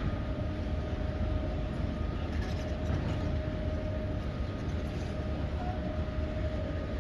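Airport baggage carousel conveyor running: a steady low mechanical rumble with a constant faint whine over it.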